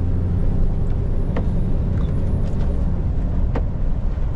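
Steady low drone of a Scania V8 truck's engine and road noise, heard from inside the cab, with a couple of faint clicks.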